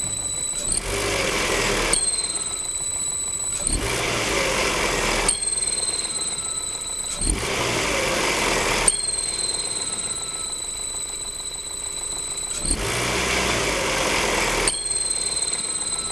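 Opel Astra H 1.8 XER engine running with a high, steady whistle that cuts in and out several times, with a rushing noise in the gaps. The whistle comes from the worn water pump; it went away once the pump was replaced with an original part.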